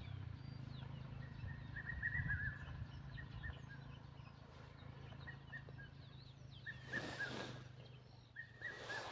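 Several birds chirping with many short, high calls. A low rumble underneath fades out after a few seconds, and two brief rushes of noise come near the end.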